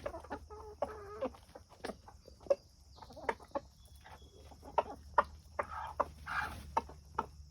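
Hens clucking in short, scattered calls while they feed, with many brief clicks of beaks pecking at food.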